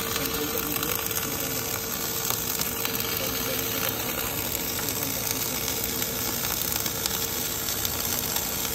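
Wire-fed (MIG/MAG) welding arc burning steadily on a steel pipe joint under an automatic orbital welding carriage: an even crackling hiss with spatter, and a faint steady hum underneath.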